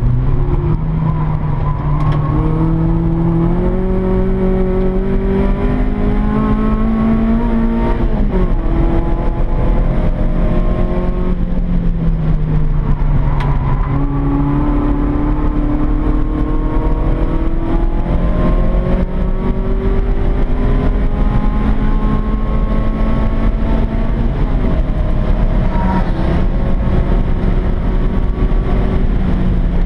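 Peugeot 106 Rallye's four-cylinder engine driven hard, heard from inside the cabin: the revs climb steadily through a gear, drop sharply about eight seconds in, and keep rising and falling with gear changes and lifts through the corners.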